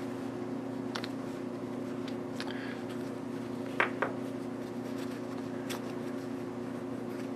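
Light clicks and taps of aluminium mould parts being handled as the split slug mould is worked out of its collar, two sharper metal clicks about four seconds in, over a steady low hum.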